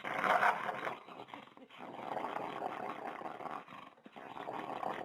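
A dog growling in several long stretches with short breaks between them.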